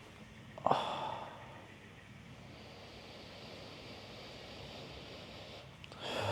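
A man's breathing while holding a stretch: a sudden sighing exhale under a second in that fades over about a second, then a longer, louder breath starting near the end.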